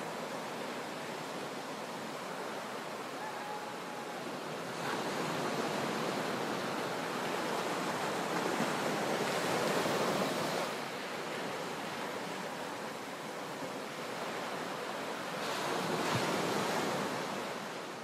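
Sea waves surging and crashing into a sea cave, a continuous wash of water that swells louder twice: from about five seconds in until about ten seconds, and again near the end.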